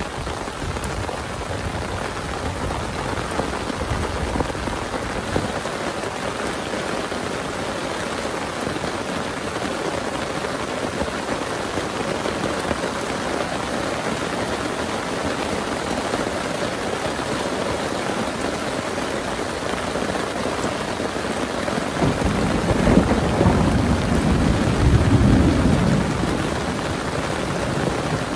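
Steady heavy rain, with a low rumble of thunder rolling in near the end and dying away over a few seconds.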